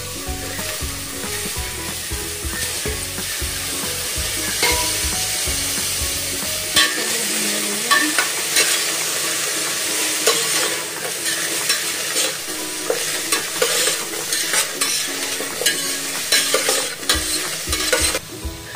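Chopped onions dry-frying without oil in a hot stainless steel pan with whole spices, a steady sizzle. A steel ladle stirs them, with frequent clicks and scrapes against the pan.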